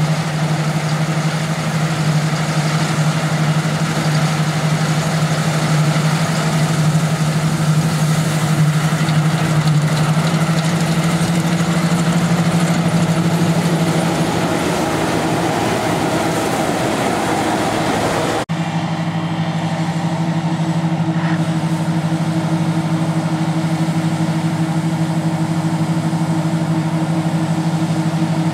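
Claas Lexion 460 combine harvester running steadily under load while harvesting wheat: a continuous low engine hum with the hiss of the threshing machinery. About two-thirds of the way through the sound changes abruptly to a steadier hum with less hiss, with the combine and a tractor running side by side as grain is unloaded.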